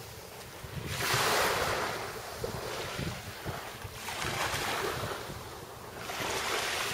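Small waves washing in on the shore, the surf swelling and falling back in surges every few seconds, with wind rumbling on the microphone.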